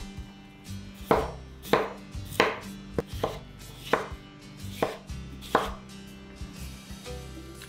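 Ceramic kitchen knife dicing a peeled potato on a wooden cutting board: a series of sharp knife strokes against the board, roughly one every half-second to second, unevenly spaced.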